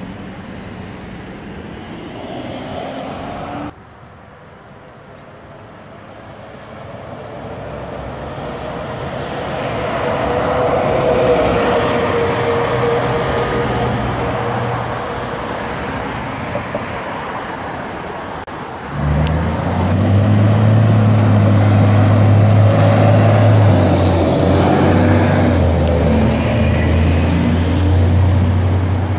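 City transit buses on a street: engine and traffic noise, building slowly to a peak with a light whine, then a louder, low, steady engine drone that starts abruptly about two-thirds of the way through.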